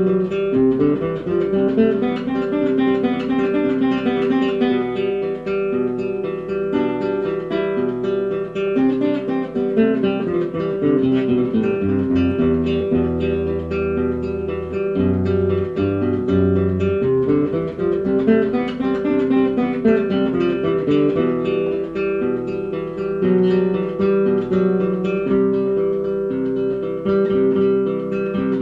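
Acoustic guitar playing an instrumental passage, strummed and picked over a looped guitar part from a Boss RC-1 Loop Station, with one note ringing on steadily underneath. A few low bass notes come in about halfway through.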